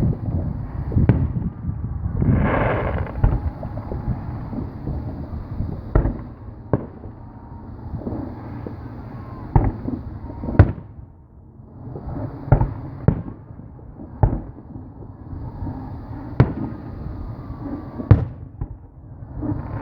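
Aerial fireworks exploding: a string of sharp bangs at irregular intervals over a continuous rumble, with bursts of crackling.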